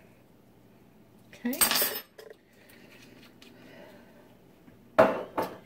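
Metal kitchen utensils clinking against cookware: a clatter about a second and a half in, then two sharp, ringing clanks near the end.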